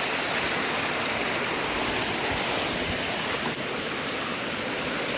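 Steady rush of water pouring down a waterfall, an even hiss that stays constant throughout.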